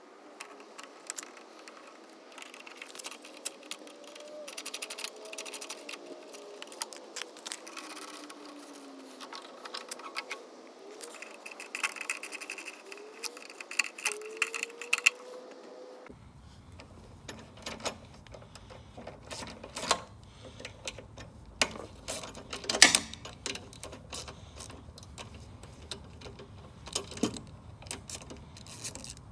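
Metal hand tools clicking, tapping and scraping on a Briggs and Stratton Quantum mower engine as screws and bolts are undone to take off the carburettor, with one sharper click a little past the middle.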